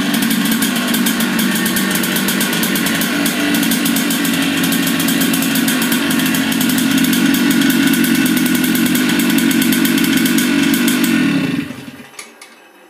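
IAME Gazelle 60cc air-cooled two-stroke kart engine running steadily at one even speed. About twelve seconds in it is switched off at the starter box and dies away within a fraction of a second.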